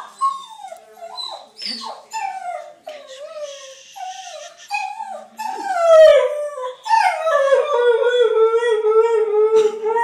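Whippet whining and yelping in short wavering cries, then howling in two long falling howls, the second held for about three seconds. It is separation distress: she is upset that her companion dog has been taken away.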